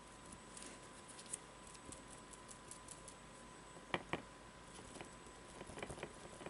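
Faint, irregular soft taps of a paint sponge dabbing acrylic paint onto card, with two sharper clicks about four seconds in as it is pressed into a plastic paint palette.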